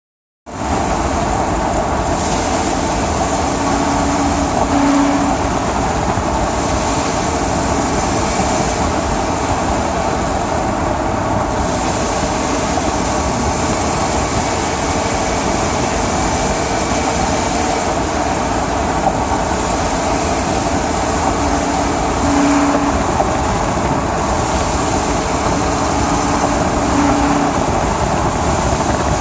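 Ford E250 van with its 5.4-litre V8 running, heard from inside the cab as steady engine and road noise. A short low hum comes in a few times and fades: the hum the owner hears only while driving, which he suspects is part of an engine problem along with its knock.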